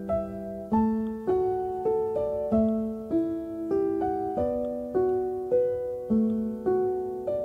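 Gentle background piano music: single notes and chords struck at an even, unhurried pace, nearly two a second, each ringing and fading.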